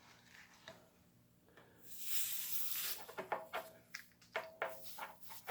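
A short hiss of air escaping from a punctured tubeless bike tire sidewall as a plug is worked into the cut, lasting about a second starting some two seconds in. It is followed by a run of light clicks and taps from handling the tire and plug tool.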